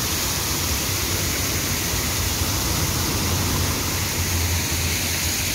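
Ground-level jet fountain splashing: a steady rush of water from many jets falling back onto the pavement.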